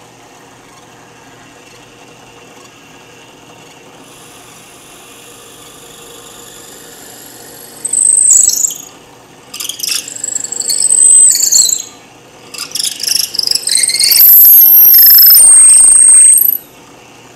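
Drill press running while a long 1/4-inch twist bit bores down into a glued-up hardwood blank, squealing high and shrill in three bouts as it is fed in. The last bout is the loudest and longest and stops abruptly near the end.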